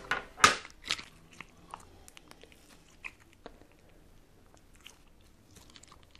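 White slime being kneaded and squeezed by hand with stiff orange lipstick worked into it, giving wet clicks and pops of trapped air. The two loudest come in the first second, then fainter clicks follow every second or so.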